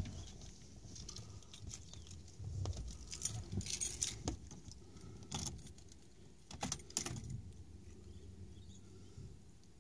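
Car keys jangling, with scattered sharp clicks and knocks as the key is worked into the ignition and turned on. The busiest handling is in the middle of the stretch.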